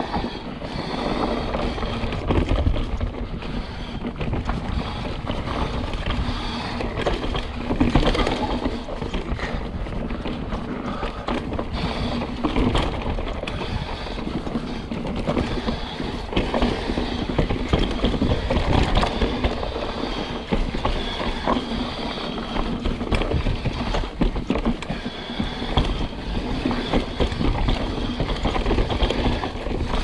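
Mountain bike descending a bumpy dirt trail: the tyres rumble over the ground while the bike rattles and clatters over rough spots, with frequent sharp knocks throughout.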